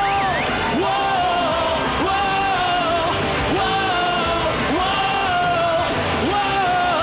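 Rock band playing a song, with a melodic lead line that repeats about every second and a bit.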